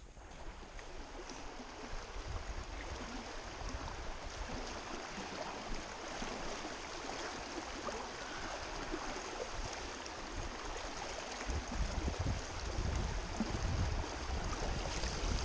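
Creek water rushing steadily through a shallow riffle around a drifting inflatable raft, with heavier low rumbling in the last few seconds.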